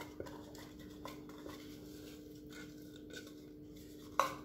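Faint taps and clinks of a blender jug and silicone spatula against a glass bowl as thick batter is poured and scraped out, with one sharper knock near the end, over a steady low hum.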